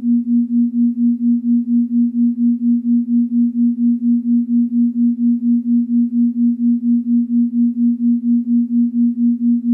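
A steady low pure electronic tone, a little above 200 Hz, swelling and fading evenly about four times a second.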